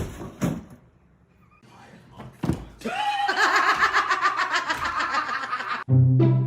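A person laughing for about three seconds. Near the end it cuts abruptly to a few sustained musical notes.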